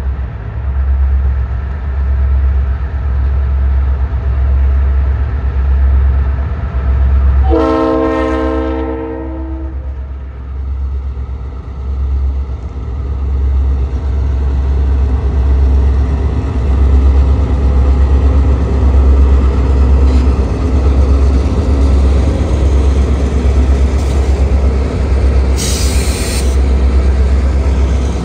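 Four EMD Geep diesel locomotives approaching and passing with a heavy low engine rumble, sounding one long horn blast about eight seconds in. The rumble grows louder as the units come alongside, with a brief high hiss near the end.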